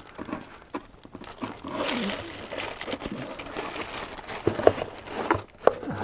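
Clear plastic parts bag crinkling and rustling as it is handled, with a few small sharp clicks near the end.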